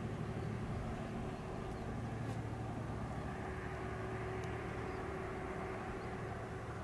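Jet engines of a Boeing 737 airliner running steadily at idle on the apron: a constant low hum with a thin steady whine over it.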